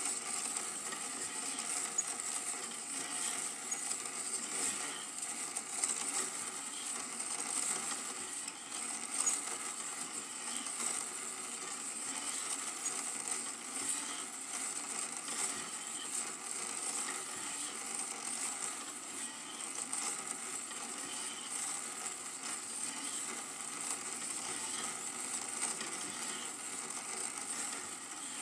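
Super 8 film projector running: a steady mechanical whirr that holds level throughout.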